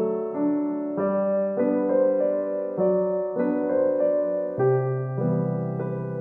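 Background piano music: a slow melody of single notes and chords, changing about every half second.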